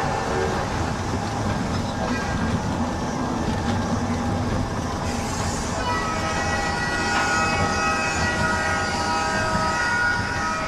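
Mountain-coaster carts rolling along their steel rail track, a steady rumble with a whine of several held tones that grows stronger about six seconds in.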